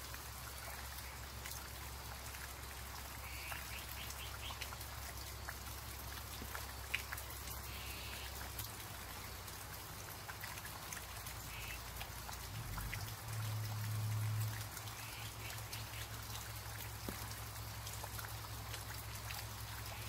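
Steady light rain falling on garden foliage, with many separate drops ticking close to the microphone. A low rumble runs underneath and swells briefly about two-thirds of the way through.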